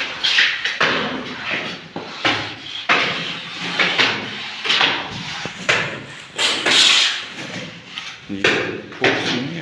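Masons' steel trowels scraping and slapping cement mortar while dabs are set on a brick wall for plastering, in short irregular strokes about one or two a second.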